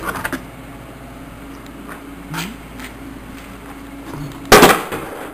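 Steady low background hum with a few faint clicks, and a loud burst of noise about four and a half seconds in that lasts about half a second.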